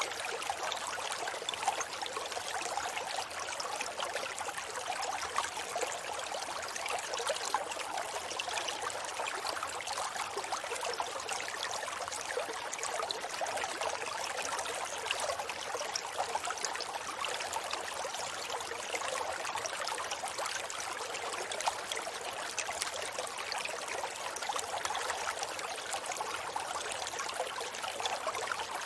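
Forest river flowing: a steady, hissy rush of running water, with little deep rumble.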